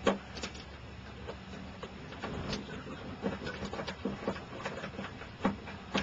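Irregular small clicks, taps and scrapes of hand work on electrical wiring: crimped ring terminals being fitted onto a terminal strip, over a steady low hum.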